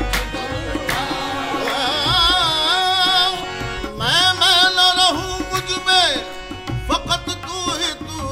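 Qawwali music: male voices holding long, ornamented notes whose pitch wavers and slides, over tabla strokes and a steady harmonium underneath.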